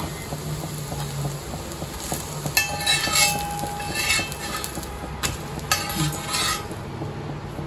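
A metal spatula scraping on a hot iron dosa tawa in three short bursts of strokes, with a high squeaking ring, over a steady low hum.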